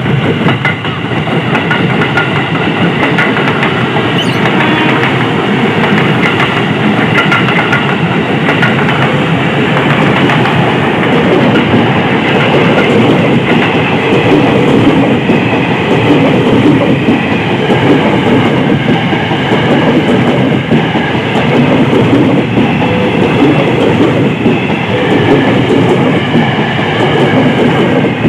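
KRL Commuter Line electric train passing close by, its wheels clattering steadily over the rails.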